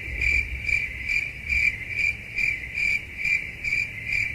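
Crickets chirping: a high, even chirp repeated about two and a half times a second, cutting off suddenly at the end. This is the stock 'crickets' sound effect used for an awkward silence.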